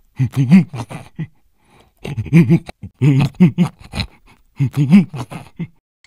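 A cartoon larva character's voice babbling in nonsense syllables and grunts, in four short runs of about a second each.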